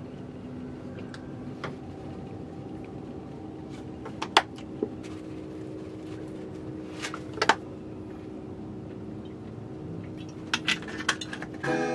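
Steady background hum with a few sharp clicks and taps as sauce and oil bottles and a spice jar are handled over a stainless steel bowl of meat; the loudest taps come a little over four seconds in and at about seven and a half seconds, with a few lighter clicks near the end.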